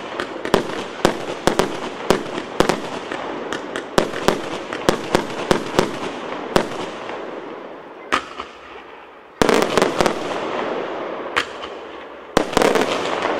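A 258-shot multi-calibre fireworks battery firing: rapid sharp reports, two or three a second, over a constant hiss and crackle. After a short lull, a louder, denser volley breaks out about nine and a half seconds in, and another near the end.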